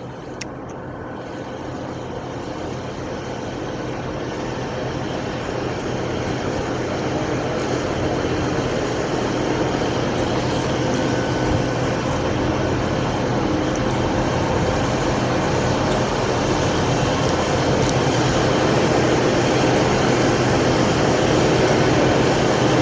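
Diesel train engine running with a steady hum, growing gradually louder.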